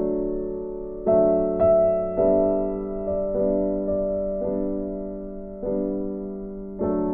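Background piano music: gentle chords struck about once a second, each ringing on and fading slowly.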